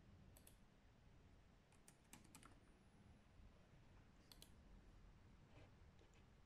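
Laptop keyboard keys pressed by latex-gloved fingers: faint, scattered key taps in small clusters, with pauses between them.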